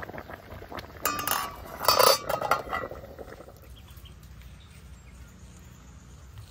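Kitchen dishes and utensils clattering and clinking against each other, a burst about a second in and a louder run of clinks around two seconds, then settling.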